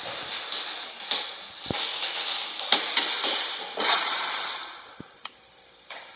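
Plastic chip bags rustling and crinkling as they are handled and fixed onto a toy ride-on car, in a string of short hissy bursts with a few clicks. It fades to quiet about five seconds in.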